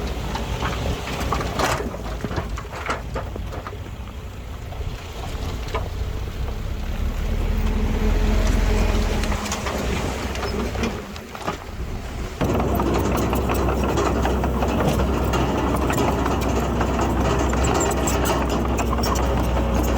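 Heavy diesel engine of a bulldozer running, with scattered knocks and clanks in the first half. About twelve seconds in the engine sound suddenly becomes louder and fuller.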